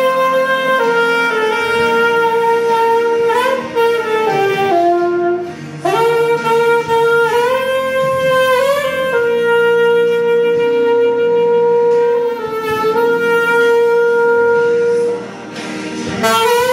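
Saxophone playing a slow melody of long held notes joined by short slides, with brief breaks between phrases, over a quieter backing accompaniment.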